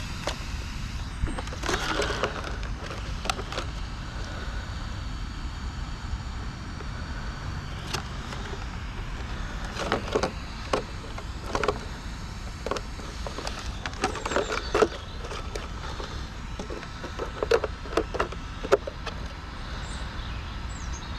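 FTX Crossbow 1/10 brushless RC truggy running, with a faint motor whine and scattered sharp knocks and clatters from the chassis and tyres, over a steady low rumble.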